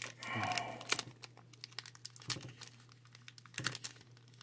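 Foil wrapper of a Pokémon card booster pack crinkling and tearing as fingers pick at it to open it: scattered quiet crackles and clicks, a little louder near the start and again about two thirds of the way in.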